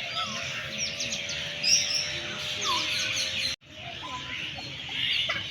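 Many small birds chirping and twittering together, with a steady tone under them that stops when the sound cuts out briefly about three and a half seconds in.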